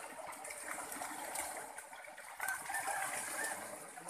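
Muddy pond water splashing and streaming through a seine net as it is hauled up with a catch of pangasius catfish.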